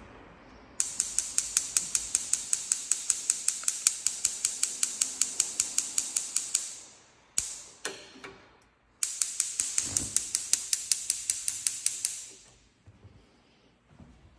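Spark igniter of a GE gas range clicking rapidly, about six clicks a second, as the burner knobs are turned to light. It runs for about six seconds, stops, and clicks again for about three seconds.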